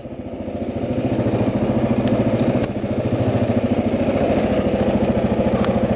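Motorcycle engine running at low, steady revs with an even pulsing exhaust beat, picking up slightly over the first second.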